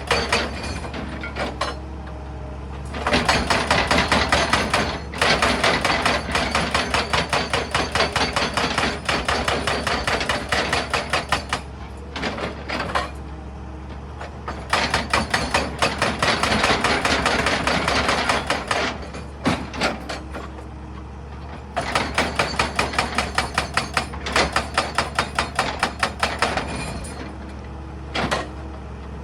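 Excavator-mounted hydraulic breaker hammering rock in rapid, evenly spaced blows. The blows come in four runs of a few seconds each, separated by short pauses, over the steady low hum of the machine's engine.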